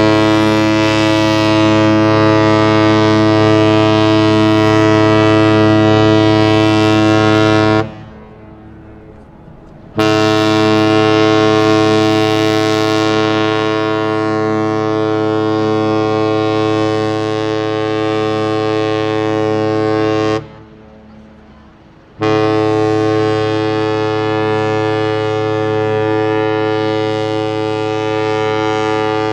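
A ship's horn sounding long, steady blasts on one deep pitch, three of them with short pauses between: the customary long horn signals of a ship departing harbour. The first stops about eight seconds in, the second runs about ten seconds, and the third is still sounding at the end.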